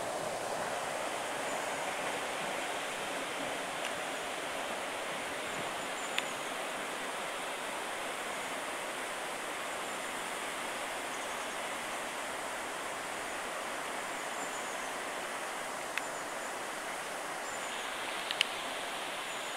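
Steady rush of river water, even and unbroken, with a few short sharp clicks about a third of the way in and again near the end.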